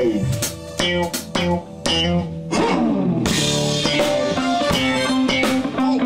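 Live funk band playing: electric bass guitar carrying the groove over a drum kit and electric guitar, with a downward pitch slide about halfway through.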